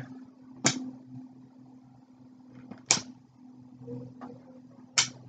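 Three sharp clicks, about two seconds apart, from a toy crossbow and its packaging being handled during unboxing, over a steady low hum.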